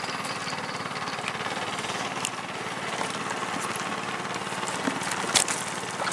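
Small boat engine running steadily across the water with a fast, even low pulse. A few sharp clicks come near the end.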